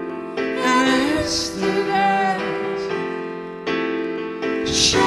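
Live pop song: piano-toned keyboard chords changing every second or so, with male and female voices singing over them in the first half and again near the end.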